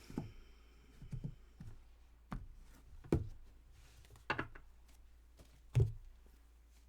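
Tarot cards being handled and laid down on a table: a series of about six soft taps and thunks, roughly a second apart, the loudest near the end.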